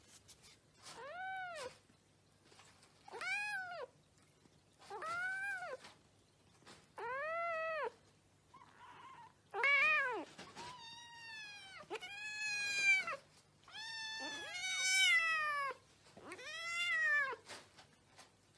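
A cat meowing over and over, about ten meows each rising then falling in pitch, a second or less apiece, coming closer together in the second half.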